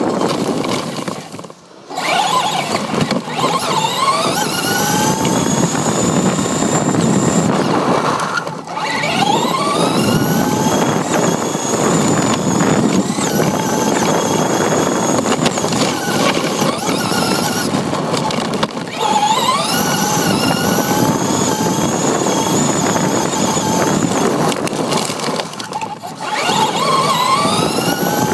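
Electric RC truck's motor and gears whining, heard from on board the truck. The whine rises in pitch again and again as the truck accelerates, over a steady rush of tyres on asphalt. It drops out briefly about two seconds in, around eight seconds in and near the end.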